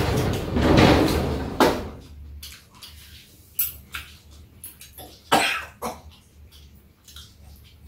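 Two people eating at a table. One makes a loud breathy, cough-like noise for about the first second and a half; after that come scattered short clicks of chopsticks and a spoon against the dishes.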